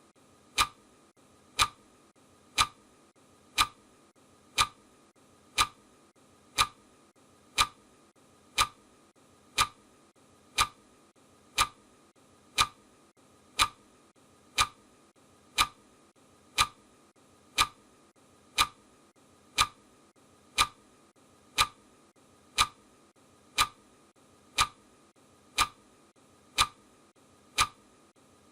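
Clock ticking sound effect: a sharp, even tick once a second, marking off the countdown.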